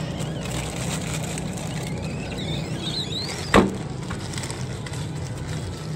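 Steady background hum with a single sharp knock about three and a half seconds in, a glass freezer-case door banging as it is swung shut.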